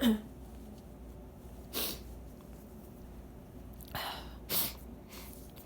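A woman's congested nose sniffing in short, sharp bursts: a brief voiced huff of breath right at the start, then sniffs about two seconds in and a cluster around four to five seconds in, as she fights the tickle of a held-back sneeze.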